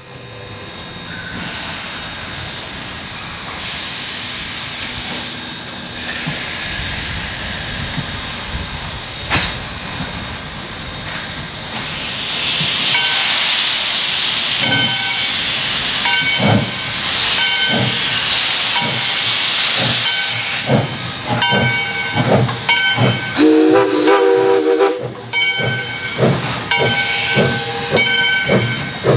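Two steam locomotives, Mikado 40 and Mikado 3025, pulling a passenger train away: steam hissing, loud in the middle, then exhaust chuffs that quicken as the train gets under way. A bell rings through the last part, and a short whistle blast comes about three-quarters of the way through.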